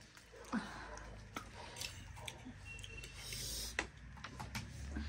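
Scattered light clicks and taps of tableware as the momos are tasted, over quiet room tone, with a faint short voice sound about half a second in.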